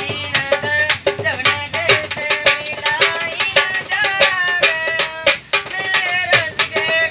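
A folk song sung by a street singer over a fast, steady beat of sharp hand-percussion strokes.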